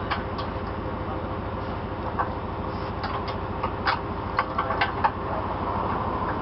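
Heavy truck's diesel engine idling steadily, with a run of sharp metallic clicks and knocks about halfway through.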